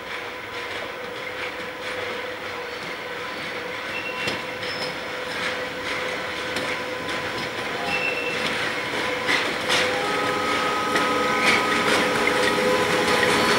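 British Rail Class 92 electric locomotive hauling a freight train of hopper wagons, growing steadily louder as it approaches. A steady whine runs under scattered wheel clicks over the rails, and more whining tones join about ten seconds in.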